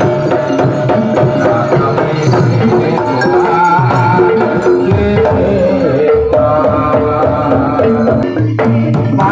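Javanese gamelan music with kendang hand drumming under sustained pitched melody lines, the accompaniment for a barongan dance. The music is loud and continuous, with one brief break near the end.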